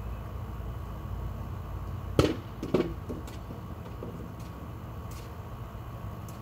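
Two sharp knocks about half a second apart, followed by a few faint clicks, over a steady low rumble.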